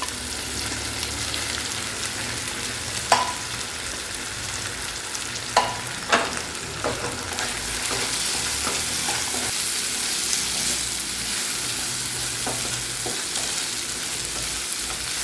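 Fried fish pieces being stirred into an onion, soy and tomato sauce in a hot pan: a steady sizzle with a few sharp clicks and scrapes of the utensil against the pan, the loudest about 3 and 6 seconds in.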